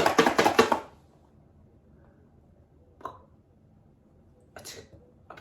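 A person making a quick mouth sound: a rapid run of about six sharp, spitty pulses in under a second, then a few faint clicks and short breathy noises.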